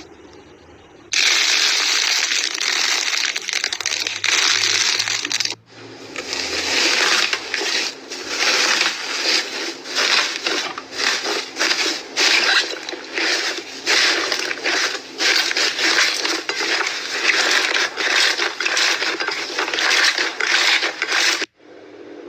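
Aluminium foil crinkling and crackling as hands press and knead it over slime, a dense run of sharp crackles that starts about a second in, with a short break about five and a half seconds in.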